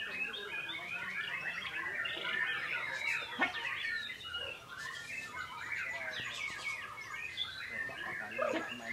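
White-rumped shama song: a dense, unbroken run of varied whistles, chirps and quick trills.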